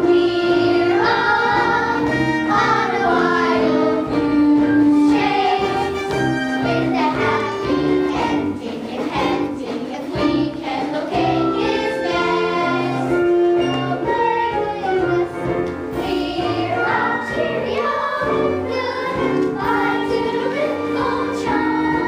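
A children's chorus singing a stage-musical number together, over a loud musical accompaniment with a steady beat.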